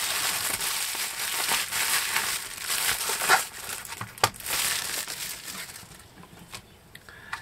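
Bubble-wrap packaging crinkling and rustling as it is unwrapped by hand, with one sharp click about four seconds in; the rustling dies away after about six seconds.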